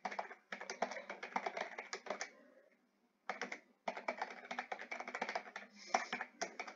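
Typing on a computer keyboard: quick runs of key clicks that stop for about a second partway through, then resume.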